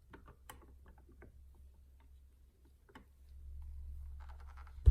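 Scattered small clicks and ticks of a screwdriver working the screws on the underside of a sewing machine, over a low hum that grows louder near the end. A single loud thump comes right at the end.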